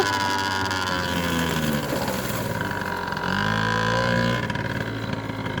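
A 70cc big-bore two-stroke scooter engine running under way, its revs shifting up and down, with a short burst of higher revs about three seconds in.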